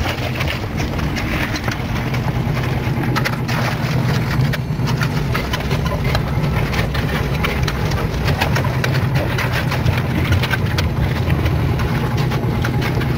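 An engine running steadily, with many short scrapes and clicks of a steel trowel and shovels working wet concrete on the stair steps.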